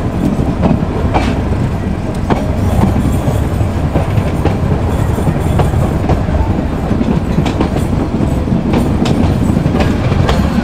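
Meter gauge passenger train running slowly out of a station: a steady rumble of the coaches on the track, with irregular clacks of the wheels over rail joints.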